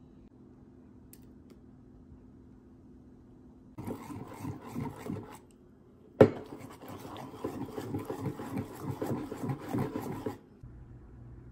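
Wire whisk beating an egg into pancake batter in an enamel bowl: a quick run of wet scraping, slapping strokes starting about four seconds in, with one sharp clink of metal on the bowl partway through, after a few seconds of near-quiet room tone.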